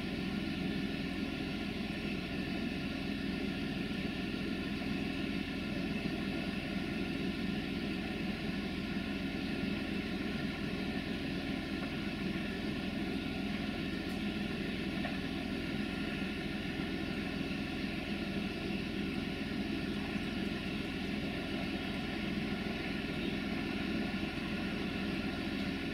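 Class 64 diesel locomotive's engine running with a steady drone as the locomotive approaches slowly.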